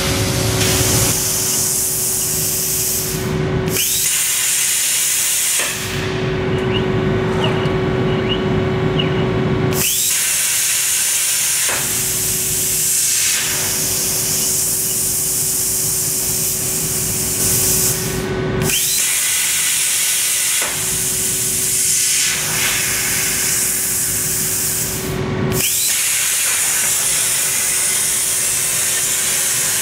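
CNC plasma cutter with a Hypertherm torch cutting steel plate: the plasma arc gives a loud steady hiss over a constant low hum. The hiss stops and restarts several times as the torch finishes one cut and pierces the next.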